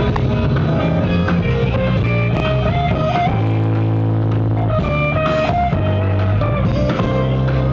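Live blues band playing: electric guitars, keyboard and drums, with a chord held for about a second and a half midway before the band picks up again.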